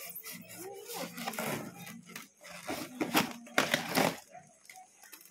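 Plastic wrapping crinkling and a polystyrene foam box scraping as it is handled and its lid worked open, heard as a few short, sharp rustles, with voices talking quietly.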